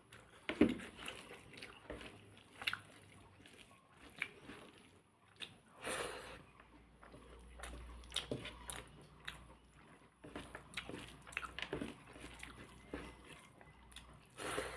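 A person eating pork up close to the microphone: repeated biting and chewing, with many short wet clicks and smacks at irregular times.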